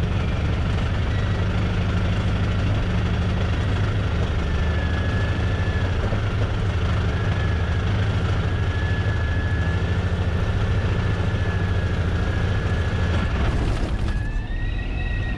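Cabin noise of a Cessna T210 Turbo Centurion gliding in to land after a catastrophic engine failure: a steady low rumble from the crippled engine and propeller under rushing airflow, with a faint wavering whistle. Near the end the rushing air eases as the plane is on the runway.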